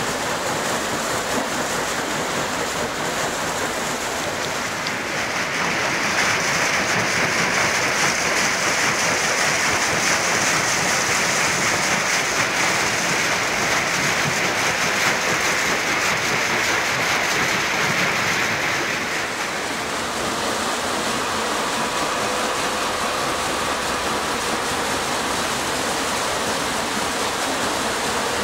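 Water splashing and rushing through a turning metal waterwheel of a watermill: a steady rush that grows louder for a long stretch in the middle. A faint steady hum comes in for the last part.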